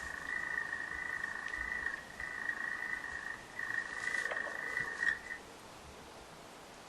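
A frog calling: a steady high trill in three long stretches with short breaks, stopping about five seconds in.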